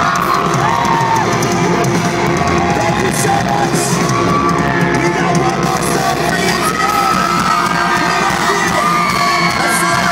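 Loud live pop-punk band playing through the stage PA, with the surrounding crowd shouting and whooping close to the microphone.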